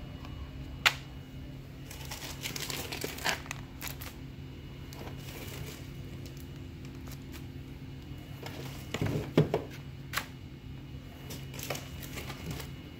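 Plastic-bagged inflatable toy packages and their cardboard boxes being handled and shuffled: crinkling and rustling in several short spells, with a sharp click about a second in and the loudest handling about nine seconds in. A steady low hum runs underneath.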